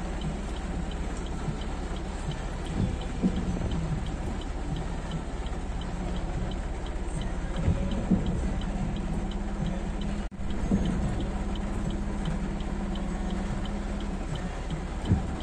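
Heavy rain and traffic on a flooded street: a steady wash of noise with a low engine hum and occasional louder swells, and a faint regular ticking about three times a second. The sound drops out briefly a little after ten seconds in.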